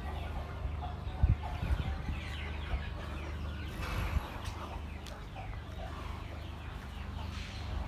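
Birds calling in short, repeated downward-sweeping chirps over a steady low rumble, with a few soft thumps.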